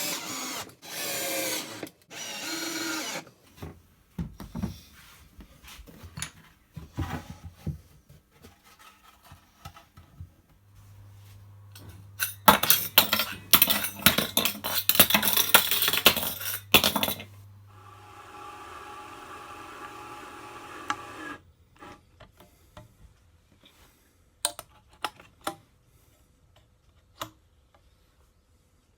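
Workshop sounds of a power tool working wood. It runs loudest for about five seconds near the middle, then runs more quietly for a few seconds before stopping. Knocks and clicks of handled wood and tools come before and after.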